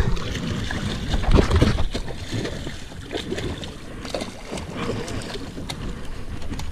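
Water slapping and wind noise around a boat, with splashing and knocks as a hooked kingfish (king mackerel) thrashes alongside and is netted.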